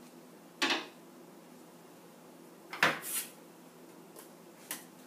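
Objects being set down and handled on a wooden worktable: a few short, sharp knocks, the loudest a double knock about three seconds in.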